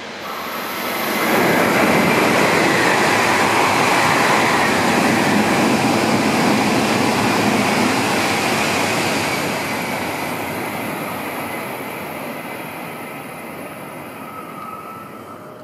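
E5-series Shinkansen passing through the station at speed. A rushing roar swells up within the first second and a half, stays loud for about eight seconds as the train goes by, then fades as it recedes.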